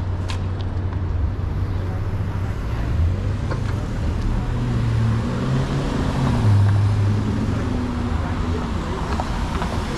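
City street traffic: motor vehicles running with a steady low rumble, a passing vehicle's engine note shifting in pitch through the middle and loudest a little after halfway.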